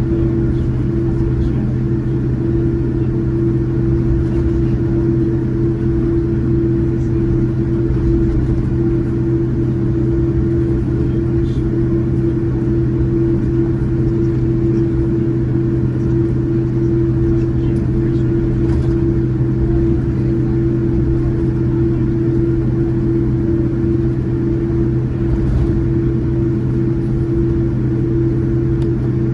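Steady cabin noise of a Boeing 787-9 airliner with GEnx engines: a loud, unchanging low rumble with a steady hum over it.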